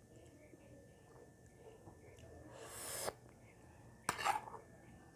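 Quiet eating sounds: a short rising slurp about two and a half seconds in, then a metal spoon scraping and clinking against a ceramic plate about a second later.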